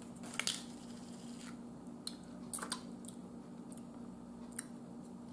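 A few faint, sharp lip smacks and mouth clicks while tasting barbecue sauce, over a faint steady low hum.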